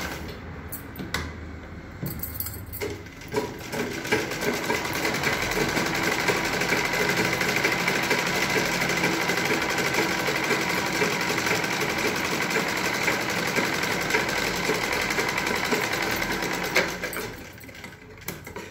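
Satyam sewing machine stitching fabric: a few short starts at first, then a steady run of about a dozen seconds before it stops near the end.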